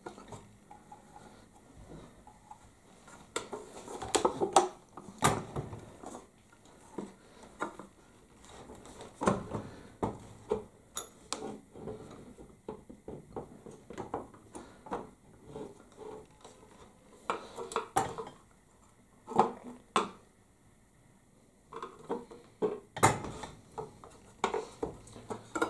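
Irregular metallic clinks and knocks as steel hand tools are handled against a bench grinder's metal motor housing and shaft, tapping at its bearings during disassembly.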